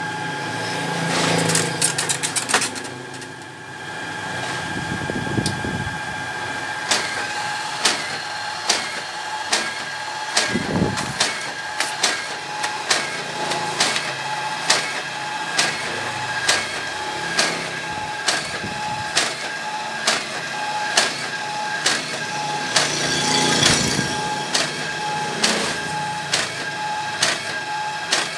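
The paper-feed drive of an Epson Stylus Photo 1390 printer converted into an invoice perforating machine, running under a speed controller with a steady motor whine. Once the feed is going, it clicks regularly about one and a half times a second as paper is drawn through.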